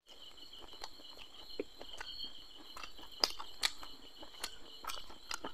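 Close-up mouth sounds of biting and chewing crispy masala-fried fish: scattered crunches and smacks, the loudest about three seconds in. Behind them, a steady high-pitched chirring of crickets.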